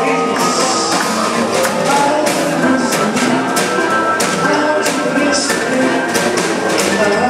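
Live rhythm and blues band playing, with drums keeping a steady beat and a man singing over the band.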